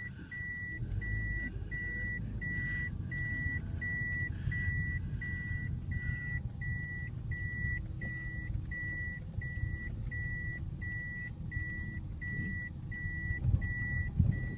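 A car's reversing beeper sounding at an even rate of about two beeps a second while the car drives backwards, heard inside the cabin over the low rumble of engine and tyres.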